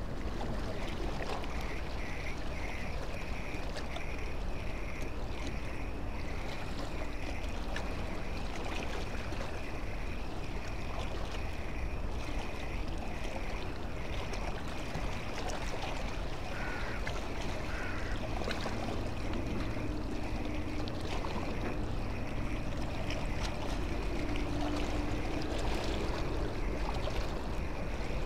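Spinning reel being cranked steadily to reel in the line, a soft rhythmic whirr at about one and a half turns a second, over a steady wash of harbour water.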